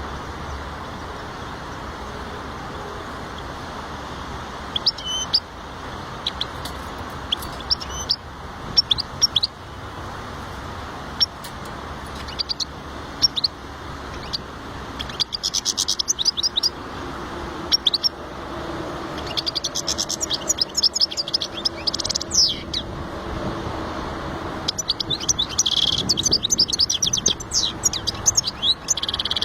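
European goldfinch singing: scattered high chirps at first, building in the second half into fast, dense twittering runs.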